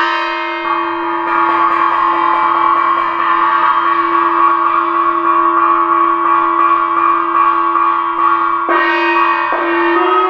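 Music of long held tones layered in chords over a steady low note, the chord changing about a second in and again twice near the end.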